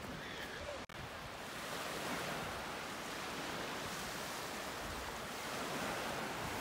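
Ocean surf breaking and washing onto a beach: a steady rush of waves, with some wind on the microphone.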